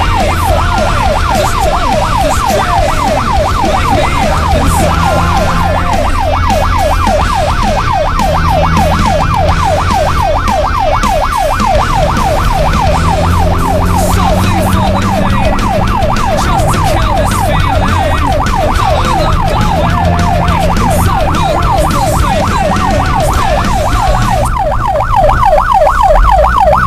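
A siren-like yelp, a high wail sweeping upward over and over several times a second without a break, over a steady low drone.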